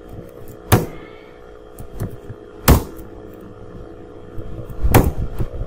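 Computer keyboard keys being struck while code is edited: three sharp, loud clicks about two seconds apart with fainter key ticks between, over a steady hum.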